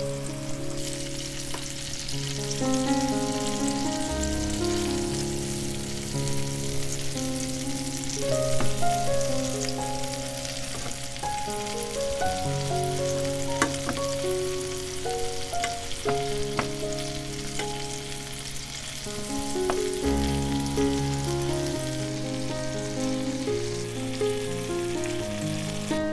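Meatballs sizzling steadily in hot oil in a frying pan, with a few sharp clicks in the middle as they are turned with a wooden spatula and fork. Background music plays under the sizzle.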